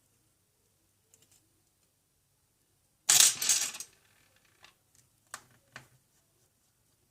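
Small tools and parts being handled on a repair bench: a short clatter about three seconds in, then about five light clicks and taps.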